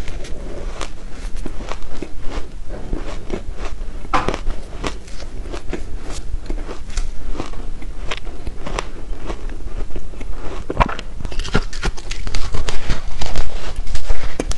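Soft shaved ice coated in matcha green tea powder being bitten and chewed up close: a dense run of small crackling crunches, louder about three quarters of the way in.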